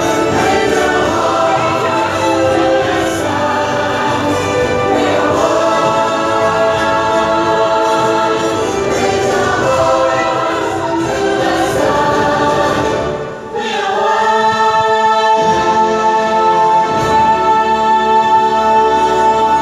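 Choir singing over orchestral music. The sound thins out briefly about two-thirds of the way through, then swells into a long held chord.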